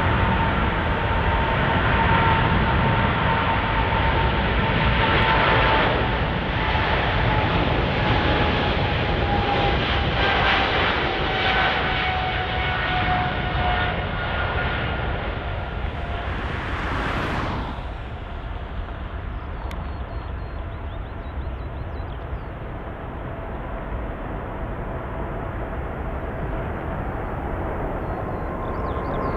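Jet airliner's engines at high power as it passes, a loud steady roar with a whine that slowly falls in pitch. About two thirds in the sound drops to a quieter, duller rumble.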